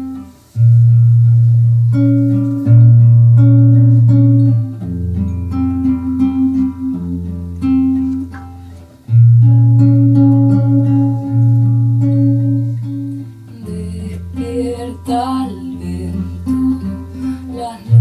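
Folk song intro on two acoustic guitars, one nylon-string and one steel-string, with a double bass holding long low notes underneath. A woman's voice comes in singing a few seconds before the end.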